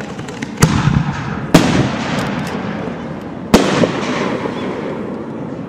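Aerial firework shells bursting: three loud bangs, about half a second, a second and a half and three and a half seconds in. Each bang is followed by a long rolling echo, with lighter crackles in between.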